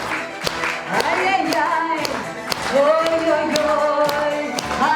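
Live pop song with a held, gliding melody line over a steady beat, with clapping in time at about two beats a second.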